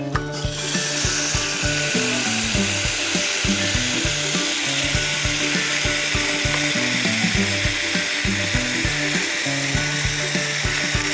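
A hot cast-iron Dutch oven of pot roast sizzling, a steady hiss that starts about half a second in, over background music with a bouncy beat.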